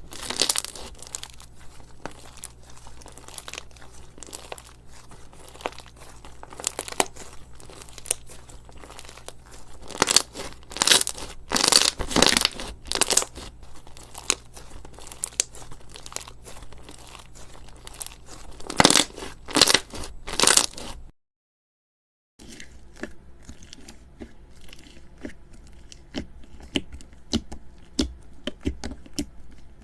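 Crunchy slime being squeezed and pressed by hand, giving dense crackling and popping with louder bursts now and then. The sound cuts out briefly about two-thirds of the way through, then quieter crackling resumes.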